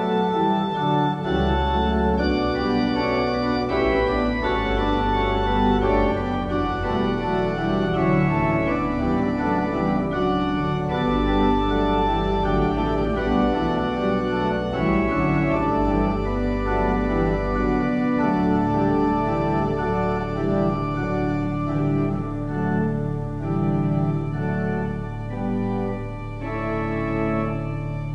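Church organ playing slow, sustained chords over long held bass notes; the deepest bass notes drop away about two thirds of the way through.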